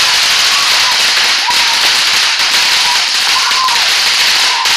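Ground fountain firework spraying sparks: a steady loud hiss with many rapid crackles.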